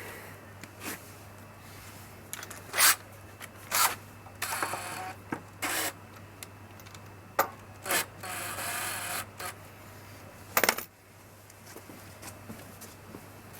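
Sharp clicks and knocks with a few short rasping scrapes of tools and metal parts, as the magneto (ignition coil) on a Briggs & Stratton Quattro 40 lawnmower engine is loosened and moved to set its gap to the flywheel.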